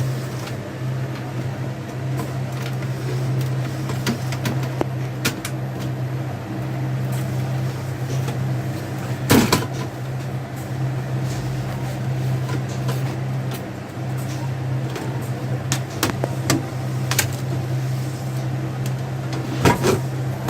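A steady low hum with scattered sharp clicks and knocks of small parts and tools being handled as a laptop motherboard is taken apart.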